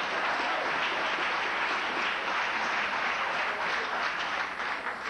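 Audience applauding: a steady, dense spatter of many hands clapping that begins to die down near the end.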